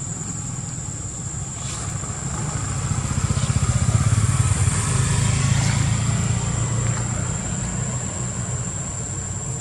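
Engine of a passing motor vehicle, a low rumble that swells to its loudest about four seconds in and then fades.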